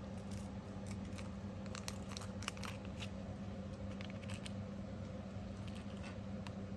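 Light clicks and small rattles of tiny metal fidget-slider parts (springs and spring cups) being handled, in two scattered clusters, over a steady low hum.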